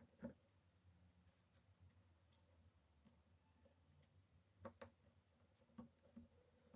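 Near silence broken by a few faint, scattered clicks, with a close pair about two-thirds of the way through: small tools and phone parts being handled during an iPhone screen replacement.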